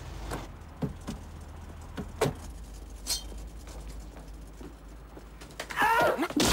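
A few scattered footsteps and knocks on a wooden shop floor over a low steady hum. Near the end a loud scuffle breaks out with yelling.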